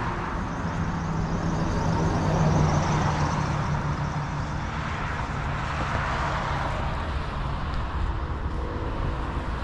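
A car driving past, its engine and tyre noise swelling about two to three seconds in and then fading to a steady traffic hum.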